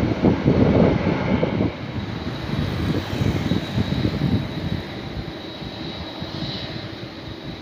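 Four GEnx jet engines of a Boeing 747-8 freighter running on the runway: a low, noisy rumble, loudest in the first couple of seconds and then easing off.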